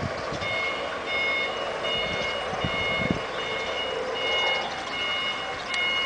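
Electric forklift's reversing alarm beeping steadily and repeatedly as the truck manoeuvres, starting about half a second in, over the hum of the machine.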